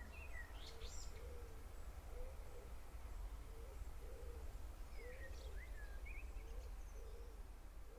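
Faint birds calling: a run of short low calls repeating roughly once a second, with a few high chirps about a second in and again around five seconds in.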